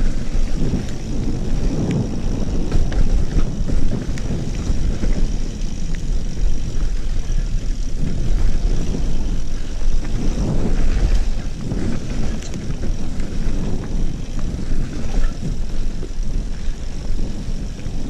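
Mountain bike riding fast down a dirt trail: a steady low rush of wind on the microphone and tyres rolling over the ground, with occasional short knocks from bumps.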